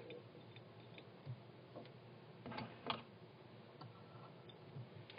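A few faint, short clicks and light taps from small fly-tying tools and materials being handled at the vise, the two clearest about two and a half and three seconds in.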